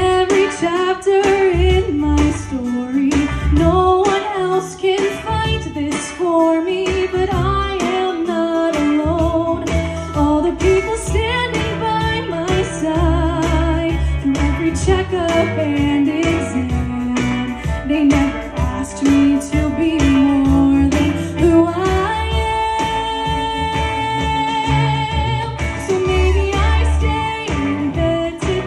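A woman singing a slow pop song with vibrato into a handheld microphone, amplified through the room's sound system over an instrumental accompaniment with guitar and bass.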